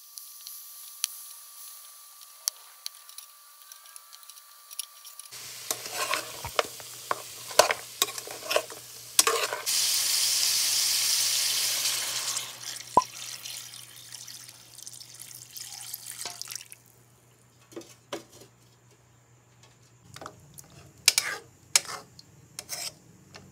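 Beef and chopped onions sizzling in a pan, with a utensil clicking against the pan, then broth poured into the pan with a loud rush about ten seconds in that fades over a few seconds. Near the end a ladle clinks against the pot in the simmering soup.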